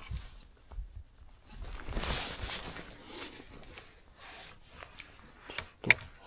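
Rubbing and rustling handling noise from clothing and fishing rod against a body-worn camera, with one sharp click near the end.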